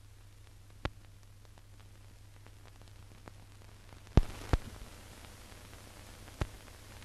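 Surface noise of an old film soundtrack with no programme sound: a steady low hum and hiss, broken by four sharp clicks. The hiss grows louder about four seconds in, with two clicks close together.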